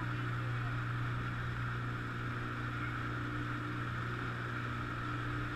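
Small motorboat's engine running steadily: an even hum under a steady hiss.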